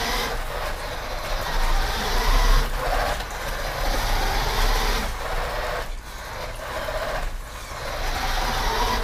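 Electric motor and gear train of a 1983 Radio Shack off-road RC buggy whining in medium gear on a nickel-metal hydride battery pack. The pitch rises as it picks up speed, and the sound dips briefly a few times as the throttle is let off.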